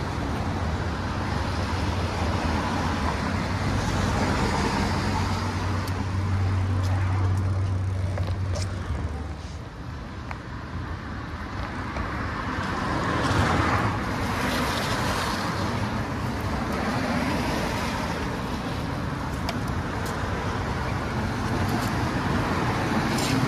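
Road traffic on rain-wet city streets: tyres hissing on wet pavement, with a steady low engine hum for the first nine seconds or so and a louder vehicle passing about thirteen seconds in.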